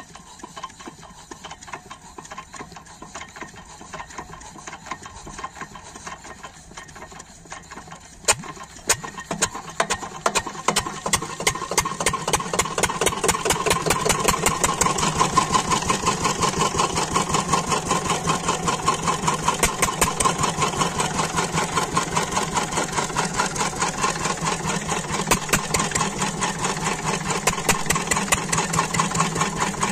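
12 hp single-cylinder diesel water-pump engine starting: it catches with a sharp knock about eight seconds in, then fires faster and louder for a few seconds and settles into a steady, even running beat.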